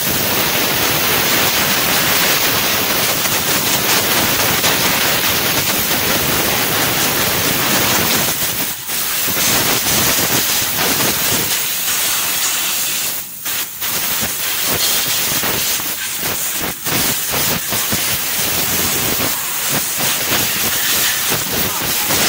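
Compressed-air blow gun hissing steadily as it blasts dust out of a car's radiator and engine bay, with a few brief breaks partway through.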